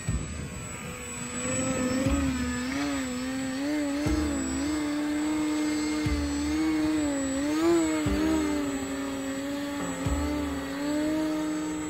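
Electric motor and propeller of a ParkZone Visionaire RC plane whining in a hover, the pitch wavering up and down as the throttle is worked to hold it nose-up just above the ground.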